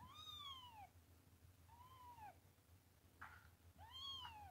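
A young kitten crying: three high mews, each rising then falling in pitch, the first the loudest. A short rustle comes between the second and third.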